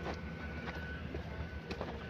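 Rail vehicle running slowly along new track: a steady low rumble, sharp wheel clicks every so often, and a thin steady whine.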